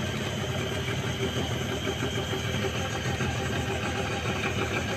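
Boat engine idling, a steady low hum.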